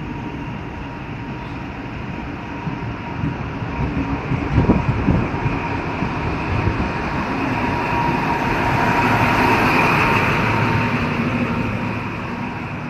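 NSW XPT passenger train rolling past a platform: a steady rumble of wheels on the rails with a thin steady whine, a few heavier knocks around four to five seconds in, and growing louder in the second half as the rear diesel power car comes by.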